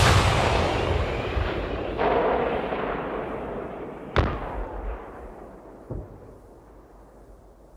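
Battle sound effects: the rumble of an explosion slowly fading away, broken by single sharp gunshots or blasts about two, four and six seconds in. The one near four seconds is the sharpest.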